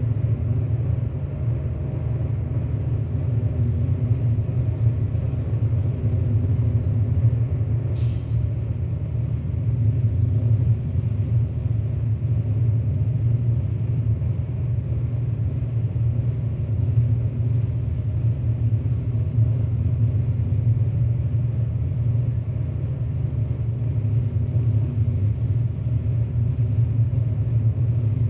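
Experimental noise music from analog synthesizers: a steady, deep rumbling drone that barely changes. A brief high click sounds about eight seconds in.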